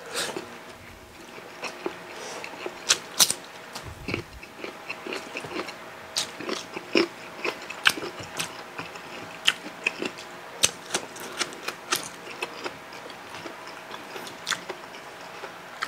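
Close-miked eating sounds of two people eating steamed tilapia and rice by hand: scattered lip smacks, chewing and sticky mouth clicks. Under them runs a faint steady hum from an electric pan switched on nearby.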